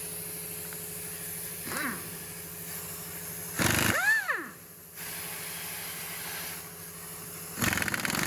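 Air tool, most likely an air impact wrench, run in three short bursts about two, four and eight seconds in. Each burst has a brief rattle and a whine that rises and falls as the motor spins up and down.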